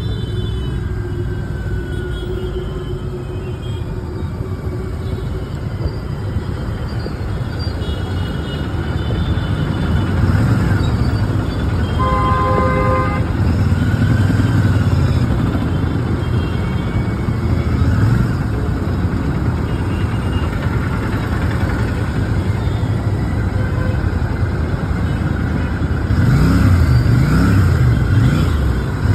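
Royal Enfield Shotgun 650's 648 cc parallel-twin engine running steadily while riding through city traffic. A vehicle horn sounds once for about a second midway, and the engine revs up near the end.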